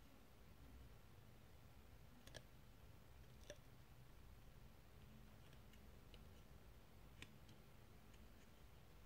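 Near silence with three faint clicks, about two, three and a half and seven seconds in, from fingers handling a CD's paper obi strip and insert.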